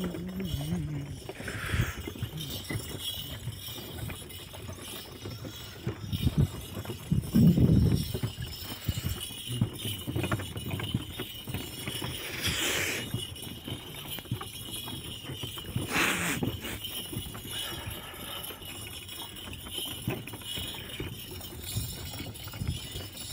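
Camel-drawn wooden cart moving along a dirt track: its boards and the chains on its shafts rattle and clink in a steady run of small knocks, with a few louder knocks.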